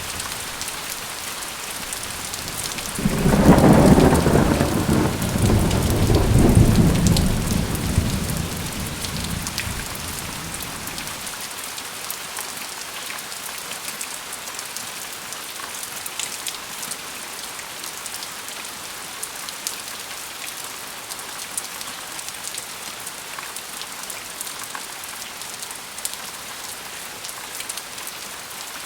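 Steady rain with a peal of thunder that starts about three seconds in, swells twice and rumbles away over several seconds. After that the rain continues alone, with scattered drop ticks.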